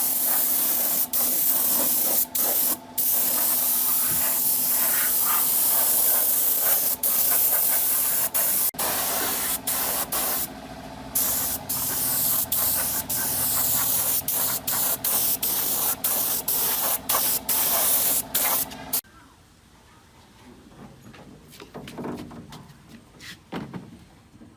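A spray gun hissing in long bursts over a steady motor hum, broken by many brief trigger releases. The spraying stops suddenly about nineteen seconds in, leaving faint knocks and handling sounds.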